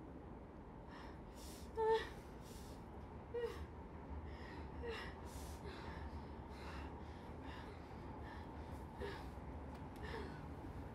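Faint, ragged breathing in short gasps, about two a second, some with a small catch of voice, over a low steady hum.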